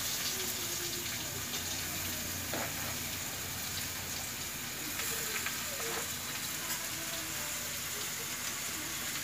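Hot oil sizzling steadily in a small wok on a gas stove, frying a tempering of nigella seeds and green chillies for potato fry. A few light knocks of utensils come through over it.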